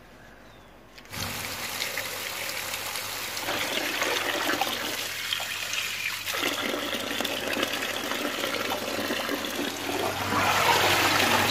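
Kitchen tap running onto spinach leaves in a plastic colander in a steel sink, with hands rubbing and swishing the wet leaves. The water comes on about a second in and grows louder near the end.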